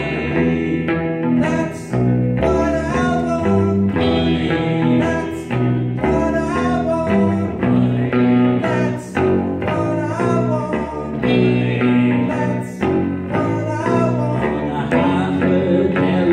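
Electric guitar and bass guitar playing live together, a blues-rock instrumental passage with a steady beat.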